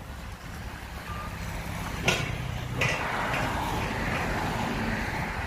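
Loaded Hyundai 5-ton dump truck's diesel engine running as the truck slows and pulls off the road onto dirt. There is a sharp clack about two seconds in and another just under a second later, followed by a few seconds of hiss.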